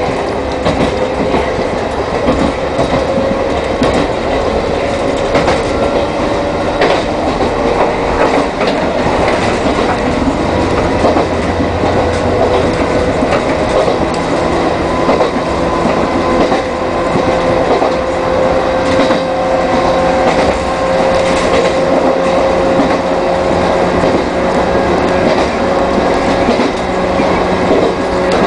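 Chichibu Railway 1000 series electric train, ex-JNR 101 series, running between stations. A steady motor-and-gear whine creeps slowly up in pitch over the rumble of the running gear, and the wheels click over rail joints.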